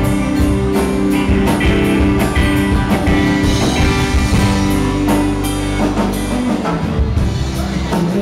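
Live band playing a rock song without vocals: electric guitar over a drum kit keeping a steady beat.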